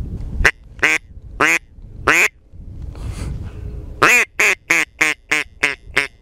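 Mouth-blown duck call giving mallard-hen quacks: four separate quacks, then a quick run of about seven quacks at about three a second.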